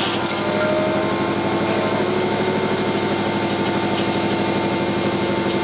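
Rally car engine idling steadily, heard from inside the stripped cockpit while the car stands still.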